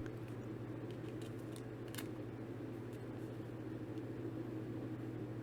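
Steady low background hum with a few faint clicks of trading cards and card packs being handled.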